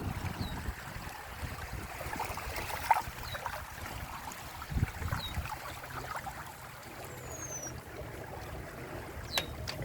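Water rushing and splashing along the hulls of a Windrider 17 trimaran under sail, with uneven surges. A few short, high chirps sound now and then, and there is a sharp click near the end.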